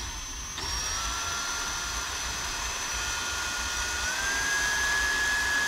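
Handheld power drill running steadily, a cobalt bit cutting a small hole through a quarter-inch stainless steel plate clamped in a vise. The motor whine picks up about half a second in and rises slightly in pitch about four seconds in.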